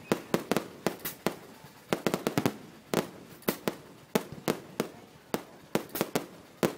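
Aerial fireworks going off in a rapid, irregular string of sharp bangs, about three a second.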